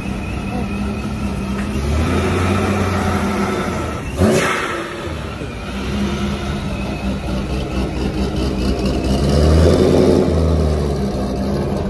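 Turbocharged C6 Corvette's V8 running at low speed as the car rolls by, its revs swelling twice, about two seconds in and again near ten seconds. A single sharp, loud pop comes about four seconds in.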